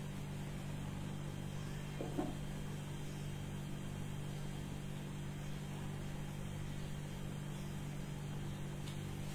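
A steady low hum, with a short knock about two seconds in.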